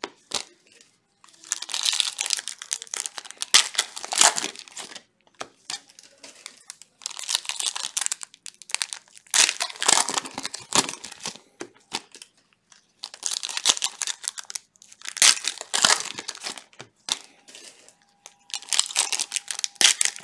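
Foil Donruss Optic basketball card packs crinkling and tearing open in gloved hands, in repeated bursts of crackling every few seconds.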